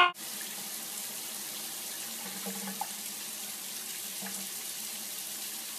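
Water running steadily from a tap into a bathtub.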